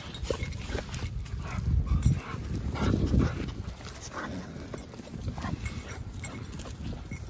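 Two pit bull–type dogs growling as they tug on a toy held in a person's hand, loudest about two and three seconds in.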